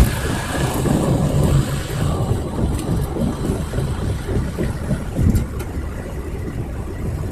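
Car driving: a steady low rumble of road and engine noise, with a sharp click right at the start and a few faint clicks later.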